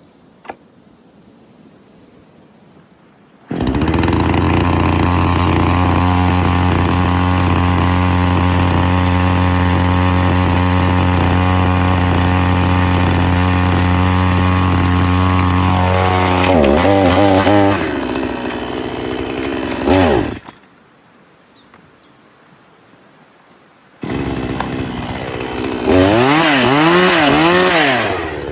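Chainsaw engine starts abruptly about three and a half seconds in and runs at a steady fast idle, then revs, drops and cuts out about twenty seconds in. After a few seconds of quiet it starts again and is revved up and down several times near the end.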